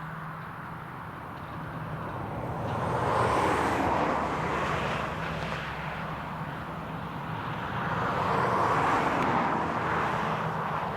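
Tractor engine running steadily under a rushing noise that swells louder twice.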